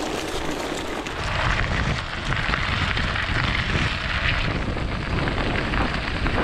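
Gravel bike tyres rolling and crunching over loose gravel, a steady rough hiss, with a low rumble of wind on the microphone that grows stronger about a second in.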